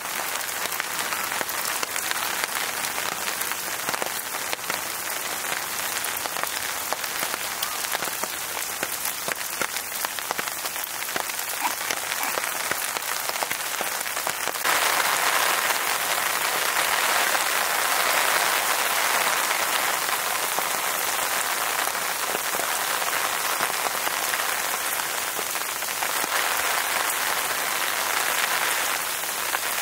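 Steady rain falling, an even hiss made of many small drop ticks; it turns suddenly louder about halfway through.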